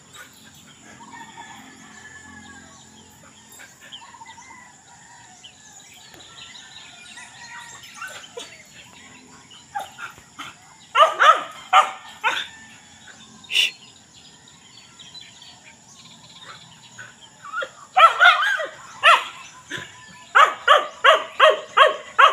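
A dog barking in several bouts of short, quick barks, starting about eleven seconds in; the last and fastest run, about four barks a second, comes near the end.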